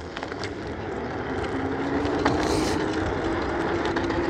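KuKirin G1 Pro electric scooter's twin 800 W motors whining at full throttle on a hill climb. The whine rises slowly in pitch as the scooter gains speed, over a rushing noise that grows louder.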